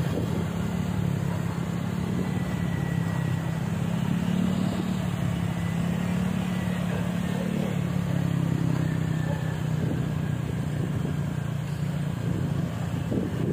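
Motor vehicle engine running steadily, a low drone holding a near-constant pitch.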